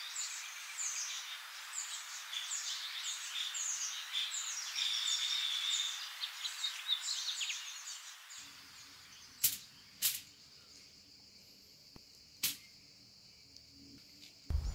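Birds chirping busily for the first half, then a quieter stretch with three sharp clicks of a kitchen knife striking a wooden cutting board as a lemon is sliced, over a faint steady high tone.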